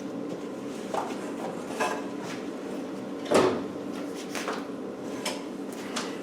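Scattered metallic clunks and clicks, about six in all, the loudest about three and a half seconds in: tools and the aluminium seat box panels of a Land Rover 109 being handled while the box is fitted for riveting.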